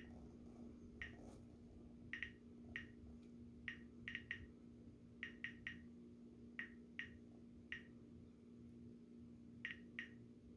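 Geiger counter clicking at random intervals, about one to three short, sharp clicks a second over a faint steady hum. The clicks are the counter detecting radiation from trinitite, atomic-test desert glass held close to its Geiger tube.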